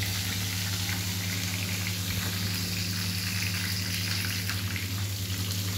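Pointed gourd (potol) and eggplant slices frying in oil in a pan, a steady even sizzle, over a low steady hum.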